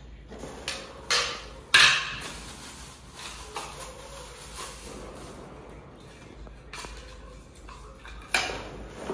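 Office chair parts handled and set down on a hard stone floor: three sharp knocks and clatters, the loudest about two seconds in and another near the end, with softer handling and plastic-wrap rustling between.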